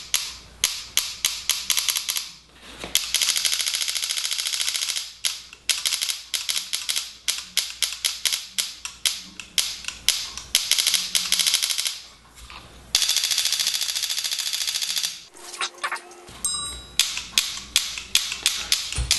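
Invert Mini electronic paintball marker cycling as its newly fitted spring-return trigger is pulled over and over: strings of sharp clicks, with two stretches of very fast continuous firing a few seconds in and again past the middle. The trigger's magnet sensor is being tested after adjustment, and it tends to double bounce.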